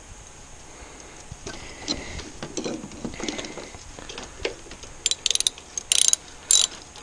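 Socket ratchet wrench doing up the front brake caliper bolts: some softer scraping and tool rattling, then about two-thirds of the way in, short bursts of rapid ratchet clicks, three times.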